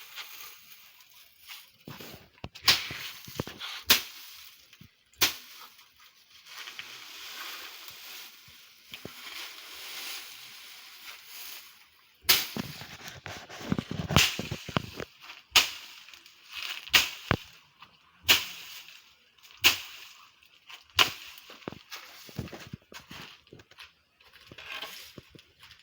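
Sharp knocks repeating roughly every second and a half, with scraping and rustling in between.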